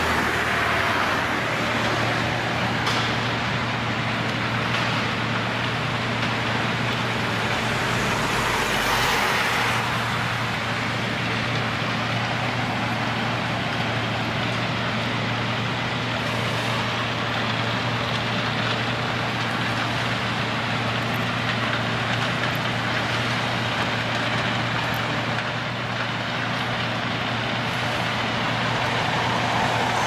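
John Deere 1470E forestry harvester's diesel engine running steadily under working load with a constant low hum, swelling briefly about eight seconds in.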